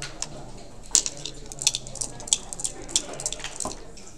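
Backgammon checkers clicking and clacking as a player picks them up and sets them down on the board: a quick, irregular run of sharp clicks, the loudest about a second in.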